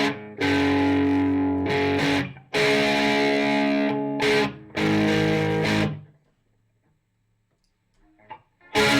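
Ibanez S470 electric guitar playing sustained chords, each ringing for a second or two with short breaks between them. The playing stops about six seconds in, and after a pause of near silence it starts again near the end.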